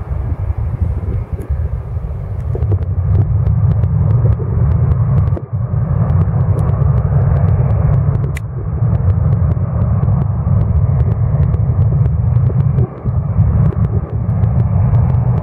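Jet engines of a rear-engined Delta airliner running at high power as it rolls away down the runway: a loud, steady low rumble that builds over the first few seconds.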